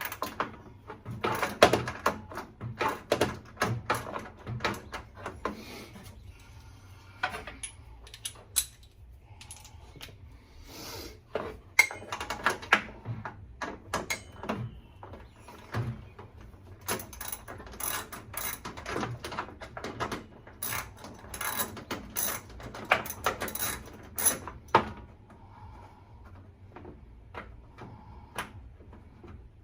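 Hand ratchet wrench clicking in repeated bursts of quick strokes with pauses between, with the odd metallic knock, as bolts on the front of the engine are backed out.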